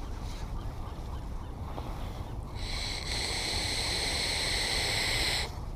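Baitcasting reel being cranked to retrieve the lure, its gears giving a steady high whir for about three seconds, starting about halfway in and cutting off sharply, over a low steady background rumble.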